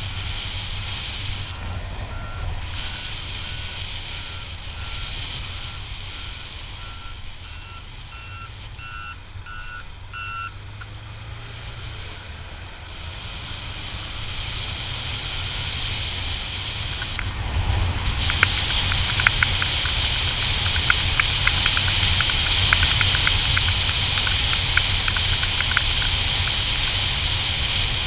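Motorcycle riding with steady engine and wind rumble, and a vehicle's reversing alarm beeping regularly, a little faster than once a second. The beeps grow louder for about ten seconds, then stop. From a little past the middle, louder wind buffeting with crackling on the microphone takes over.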